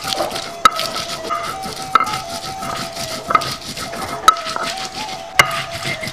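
Hand-held grinding stone crushing green chilies on a flat stone grinding slab (batu giling): rasping, grinding strokes with a sharp knock of stone on stone every second or so.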